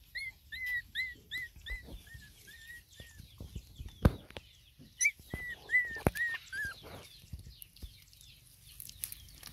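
Puppies whining: runs of short, high whimpers about three a second, one run at the start and another about five seconds in. A single sharp knock sounds about four seconds in.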